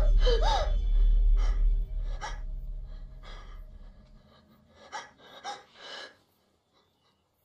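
A woman gasps sharply as she starts awake, then breathes hard in a string of ragged breaths over a low film-score drone that fades out about four seconds in. The last few breaths, around five to six seconds in, grow quieter and then stop.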